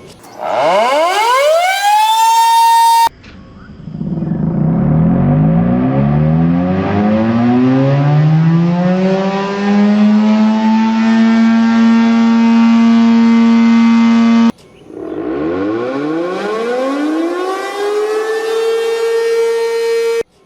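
ACA Banshee 115 tornado siren played as three edited sound variations, each cut off abruptly. First a short, high-pitched wind-up that climbs to a steady tone; about three seconds in, a much lower, slower wind-up settling into a deep steady tone. At about fifteen seconds, a medium-pitched wind-up that climbs and holds near the end.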